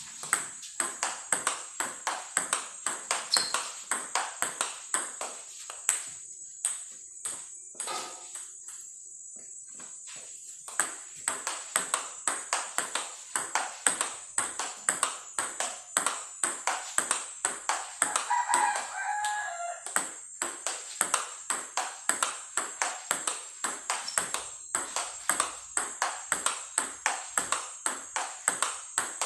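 Table tennis ball clicking sharply off bats and table in a fast forehand topspin rally, about two to three clicks a second, thinning out to scattered clicks for a few seconds about a third of the way in. A rooster crows in the background about two-thirds of the way through.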